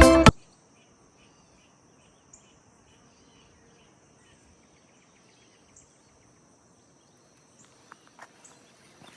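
Background music cuts off just after the start, leaving faint outdoor ambience: a steady high-pitched insect trill with a few faint chirps, and some soft clicks near the end.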